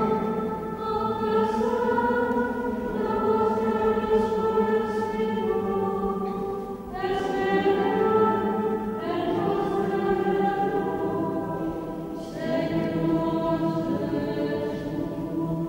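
Choir singing a slow sacred chant in long, held phrases, with new phrases starting about seven, nine and twelve seconds in.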